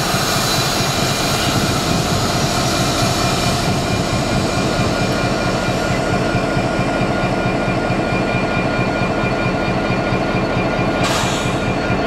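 Class 66 diesel-electric locomotive, an EMD two-stroke V12, creeping over the crossing and drawing to a stand, its engine running steadily. A brief hiss comes about eleven seconds in.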